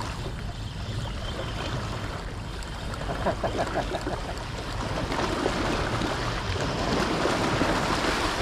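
Water lapping and splashing with wind rumble on the microphone, the water noise growing louder over the last few seconds. A short run of faint clicks comes about three seconds in.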